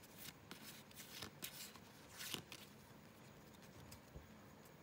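Faint rustle of a stack of Pokémon trading cards being flipped through by hand: several short swipes of card sliding on card over the first two seconds or so, then quieter handling.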